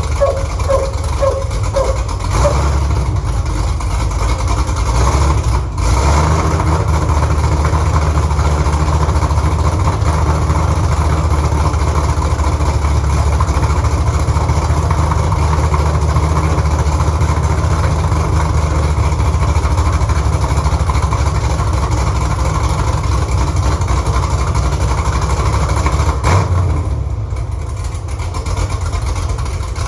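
Freshly swapped 6.2-litre LS V8 in a 1968 Camaro idling steadily during its first run-in, its Holley Terminator X management still learning the tune. The level dips briefly about six seconds in and drops a little near the end.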